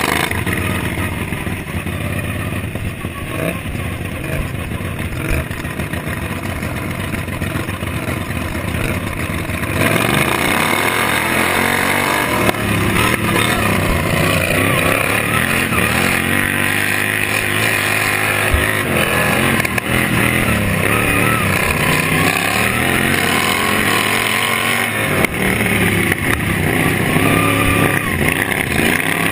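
Racing lawn tractor's small engine running hard at high revs, the pitch rising and falling as the throttle is worked, louder from about ten seconds in.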